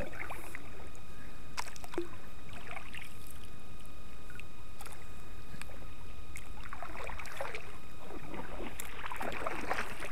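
Paddle strokes in river water beside a small Sun Dolphin sit-on fishing kayak, with a few light knocks. The splashing grows denser and louder from about two-thirds of the way in.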